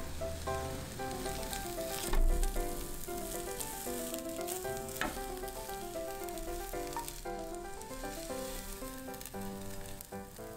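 Beaten egg sizzling in a nonstick pan as a rolled omelette is turned with a chopstick and a wooden spatula, with two sharp knocks of the utensils against the pan about two and five seconds in. A background music melody plays throughout.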